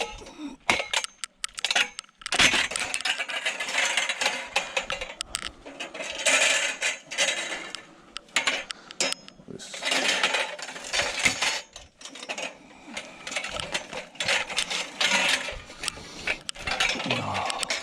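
Scrap metal clanking, rattling and scraping in irregular bursts as it is pulled about and handled.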